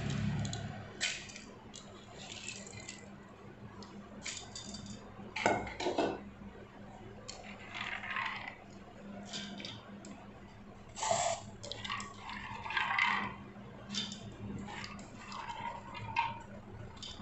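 Soaked rice and urad dal being tipped from steel bowls into a stainless-steel mixer-grinder jar: a scattered series of short clinks and scrapes of steel on steel, with wet grains sliding in.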